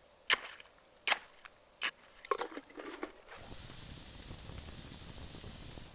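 Four or five sharp clicks and knocks, then a steady hiss from about three seconds in that cuts off suddenly near the end.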